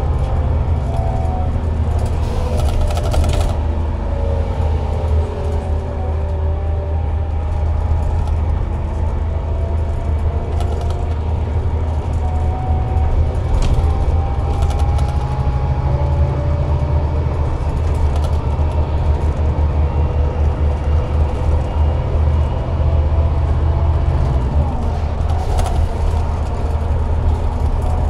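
Scania K360IB bus with its DC13 engine running under way: a steady low engine drone with several whining drivetrain tones that slide up and down with road speed, and a few brief rattles.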